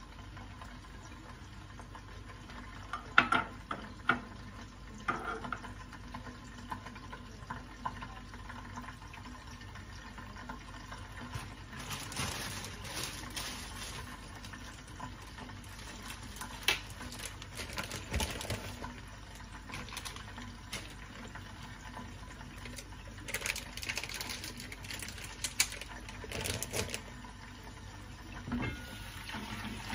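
Small sausages cooking in a little oil and water in a frying pan under a glass lid, giving a steady low sizzle and simmer. Scattered sharp clicks and knocks of kitchen handling stand out over it, the loudest about three seconds in.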